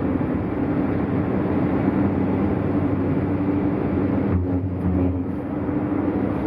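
Hyundai Tucson driving at highway speed: steady tyre, wind and engine noise. A deeper rumble comes in for about a second, a little past four seconds in.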